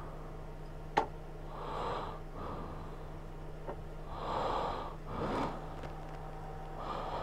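A person breathing close to the microphone inside a motorcycle helmet, several breaths in and out, over a steady low hum. There is one sharp click about a second in.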